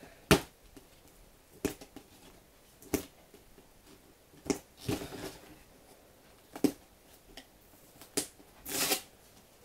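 Headset packaging being worked open by hand: sharp snaps and clicks every second or two, with short rustling scrapes about five and nine seconds in.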